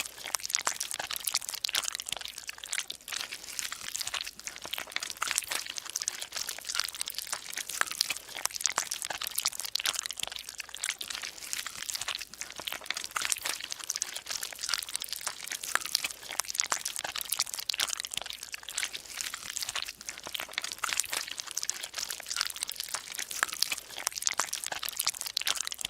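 Dense, continuous crackling and crunching: many small sharp clicks packed close together at an even level.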